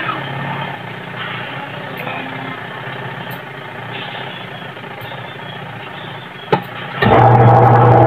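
Washing machine wash motor cutting in abruptly near the end, preceded by a single click, then running with a loud steady hum as the pulsator spins. The pulsator turns only in one direction, never reversing: the machine's fault.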